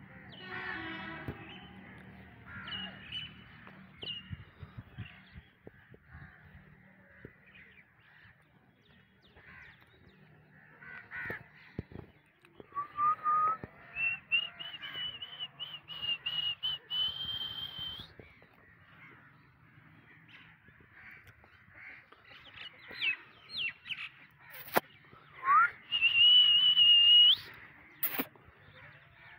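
Crows cawing on and off. About halfway through and again near the end come long, high, wavering whistle-like tones, each held a few seconds and louder than the caws, and two sharp clicks come late on.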